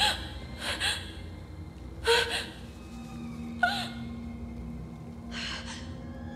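A young woman's short gasping breaths, five of them, each a sharp breathy catch. A low held note of eerie background music sits beneath.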